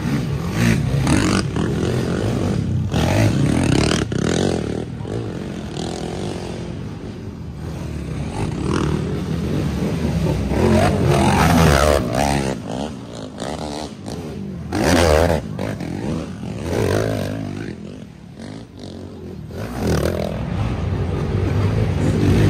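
Racing ATV engines revving hard under load on a dirt hill climb, the engine note rising and falling. It is loudest about halfway through and dips briefly near the end.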